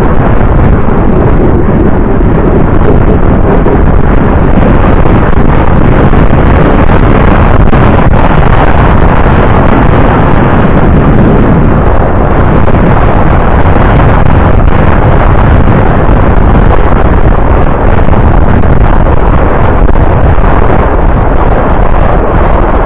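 Wind buffeting the microphone of a camera on a moving bicycle: a loud, steady rushing noise with no breaks.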